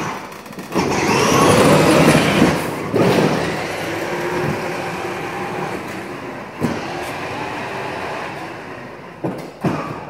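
Battery-powered ride-on toy police car driving: its electric motors and gearboxes whir, loudest about a second in, and its plastic wheels roll on the concrete floor. A few sharp clicks come near the end.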